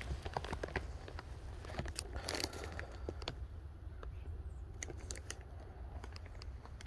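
Bag of mesquite wood chips being carried and handled: light rustling and scattered small clicks, with a brief louder rustle about two and a half seconds in, over a low steady rumble.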